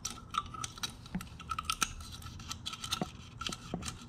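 Steel feeler gauge blades clicking and scraping, with many small irregular clicks, as a 0.003 in blade is worked between the camshaft lobe and the valve bucket of a 2006 Yamaha YZ450F to check the valve clearance.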